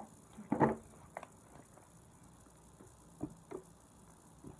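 Fluffy slime being kneaded and squeezed by hand, giving scattered wet squelches and sticky pops, the loudest about half a second in.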